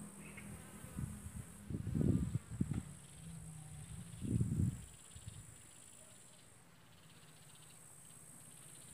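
Insects in summer grass: a low, wavering buzz like a fly passing close to the microphone, over a steady high insect trill. Two brief low rumbles on the microphone come about two and four and a half seconds in.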